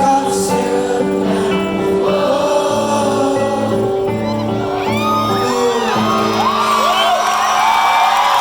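Live rock band and singer holding the closing chords of a song, the music stopping about six seconds in while the audience whoops and cheers over it.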